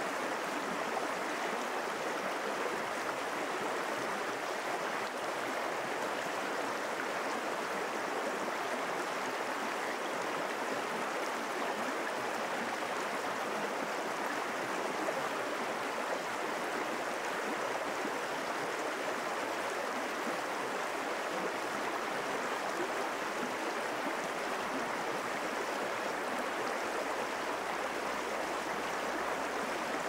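Shallow forest stream flowing over stones and riffles: a steady, even rush of water.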